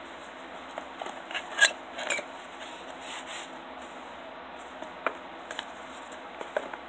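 Handling of the collector's-set pin set and its packaging: scattered light clicks and rubbing, the loudest a sharp click about one and a half seconds in.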